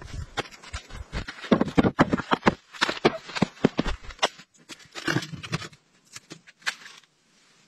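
Split firewood clattering and knocking as logs are pulled from a woodpile and handled: a fast, irregular run of wooden knocks that thins out over the last couple of seconds.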